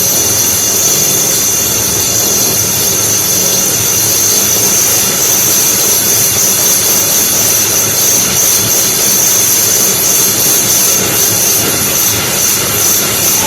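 Electric drill running continuously under load, boring through a clay-brick wall: a loud, steady grinding noise with a high whine over it.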